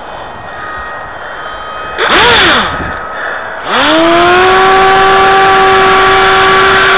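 Electric motor and propeller of a homemade foam RC F-22, heard from on board: a short rev that rises and falls about two seconds in, then the motor spins up and holds a loud, steady whine with several overtones. The propeller is turning backwards, its motor wired in reverse, so it gives the plane no thrust.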